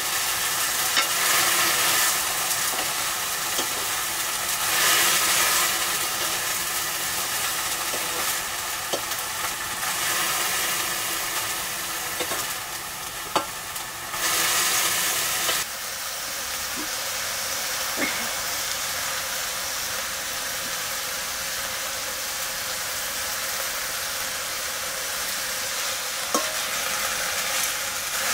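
Food frying in oil in a metal wok, a steady sizzle with a few sharp clicks, and it is being stirred.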